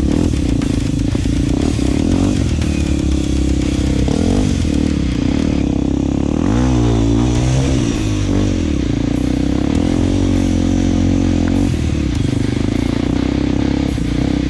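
Single-cylinder four-stroke trail motorcycle engine running under way. Its pitch shifts with the throttle, and there is a spell of revving and falling off about six to eight seconds in.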